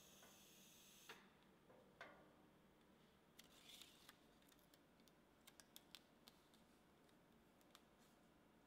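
Near silence with a few faint, scattered clicks and taps.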